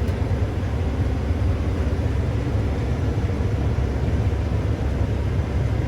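Steady low rumble of a running vehicle, an even drone with no change in pitch.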